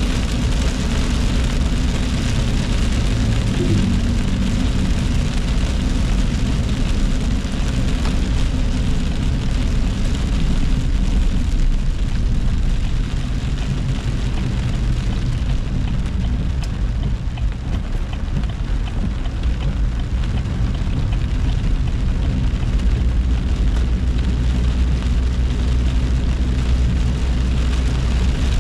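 Inside a car driving in heavy rain: steady engine and road rumble with rain on the roof and windshield and tyres hissing on the wet road. The hiss eases for a few seconds in the middle as the car slows at an intersection, then picks up again.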